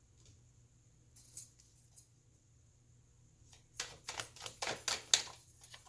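Tarot cards being shuffled and handled: a couple of soft taps, then from about four seconds in a quick run of card flicks and slaps.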